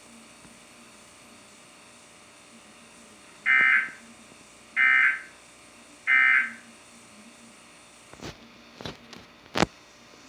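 Emergency Alert System end-of-message data tones: three short, identical bursts of high digital tone about 1.3 seconds apart, signalling the alert is over. A few sharp clicks follow near the end.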